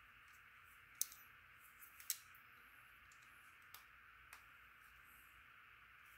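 Near silence with a steady faint hiss, broken by a few light clicks from small knife parts and tools being handled. The two sharpest come about one and two seconds in, with fainter ones later.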